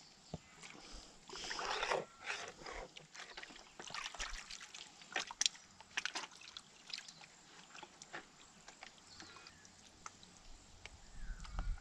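Creek water sloshing and trickling as gold pans are handled in the water, with scattered small clicks and splashes.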